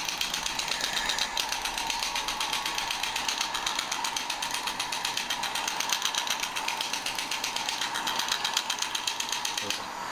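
Shockwave therapy handpiece firing a rapid, even stream of clicking pulses into the muscles of the back, stopping near the end.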